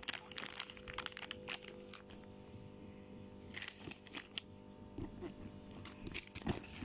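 Plastic crinkling and rustling in irregular spells as a soft plastic pack of baby wipes and a clear plastic bag are handled, with a few sharper crackles; the loudest comes near the end.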